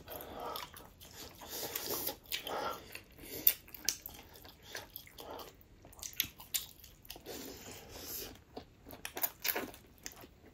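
A person chewing and biting food close to the microphone, with irregular crunchy bites.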